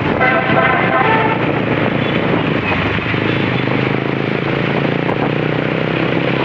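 Road traffic noise: a steady engine and tyre rumble of passing vehicles, with a low steady engine hum underneath.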